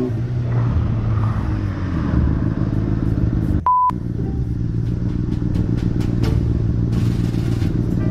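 Sport motorcycle engine running steadily while riding, heard from the rider's camera. About halfway through, the engine sound cuts out for a moment under a single short beep tone.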